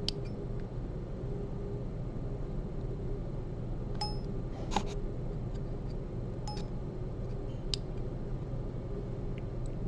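Steel surgical instruments, a needle holder and forceps, clicking and clinking lightly a few times during suturing, some clicks with a brief metallic ring, over a steady low hum.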